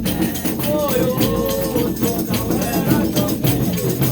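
Reisado folk music: voices singing a melody over shaken and struck percussion keeping a steady, quick rhythm.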